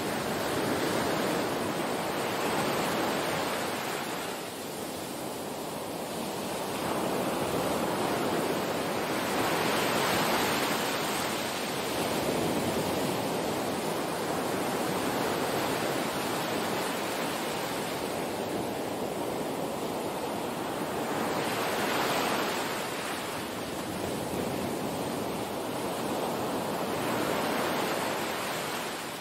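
Small waves breaking and washing up on a sand beach, the surf swelling and fading every few seconds.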